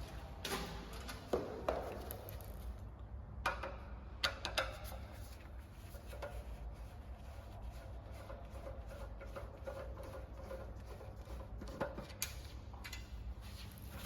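Scattered clicks and knocks of hardware being handled, clustered in the first few seconds and again near the end, over a low steady hum.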